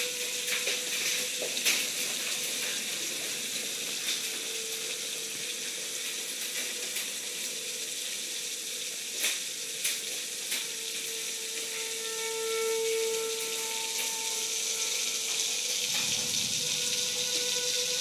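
Heavy rain with hail, a steady hiss with scattered sharp ticks of hailstones striking, under the steady wail of a distant outdoor tornado warning siren that swells and fades as it turns, loudest about two-thirds of the way through.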